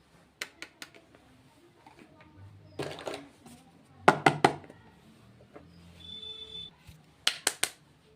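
Plastic makeup packaging being handled: quick groups of sharp clicks and taps, three or four at a time, the loudest about halfway through.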